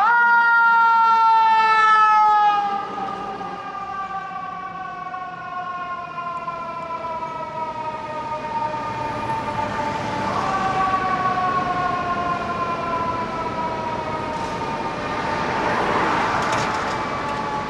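Fire engine's mechanical siren wailing. It winds up sharply at the start, then coasts slowly down in pitch, getting quieter as the engine passes and moves away. About ten seconds in it is wound up again briefly and then falls once more.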